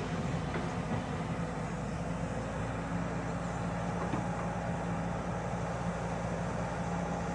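Hyundai 140 excavator's diesel engine running steadily at a constant pitch while it lifts a bucketful of soil.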